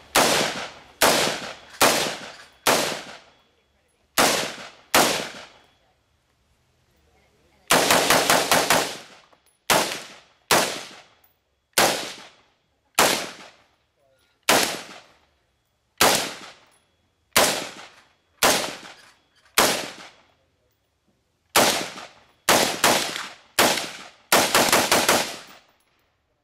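DPMS Recon carbine, an AR-style rifle, firing a long series of shots. Most come about one a second, with two quick strings of several shots near the middle and near the end, and each crack tails off in a short echo.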